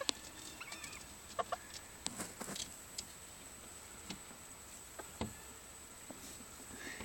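Bantam chickens giving a few short, quiet clucks, with scattered light taps and scratching as they peck and move about on wood-shaving bedding.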